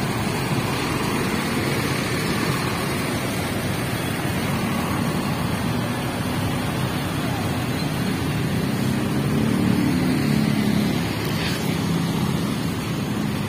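Busy city road traffic: engines running and tyres on the road in a steady rumble, swelling as a louder vehicle passes about nine to eleven seconds in.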